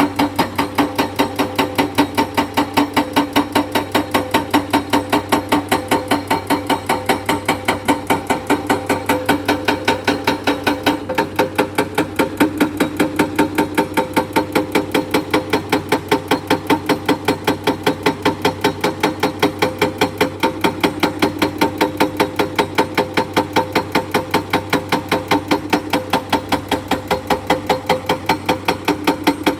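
Hydraulic breaker on an excavator hammering limestone, striking in a fast, even rhythm of about four blows a second, with a steady engine hum underneath.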